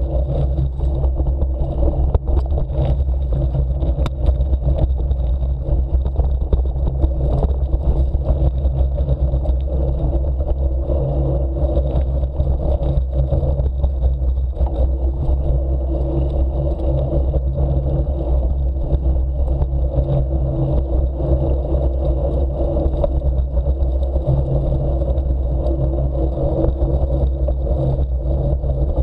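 Steady wind rush and low rumble on a camera riding along at about 20 km/h, with the bicycle's tyres rolling over a grassy, rutted forest track. There are a few sharp knocks from bumps in the first several seconds.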